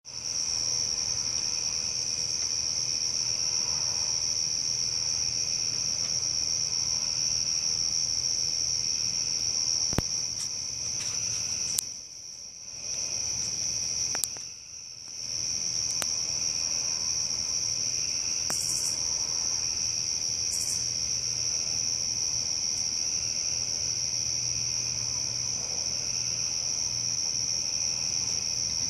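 A steady night chorus of insects, a continuous high-pitched trill that goes on without a break. A few faint clicks come near the middle, and the chorus drops away briefly twice around the same time.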